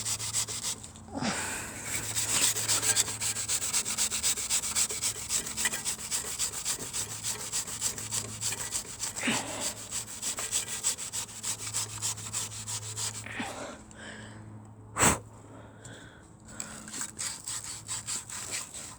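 Fast, steady scrubbing strokes as the valve of a Briggs & Stratton lawnmower engine is cleaned by hand, with one sharp click about three-quarters of the way through and lighter rubbing after it.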